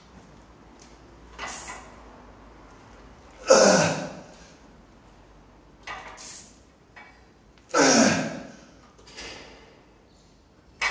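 A lifter's forced breathing while straining through a heavy lever bench press: quick breaths in, then two loud, forceful exhales about four seconds apart, one for each rep.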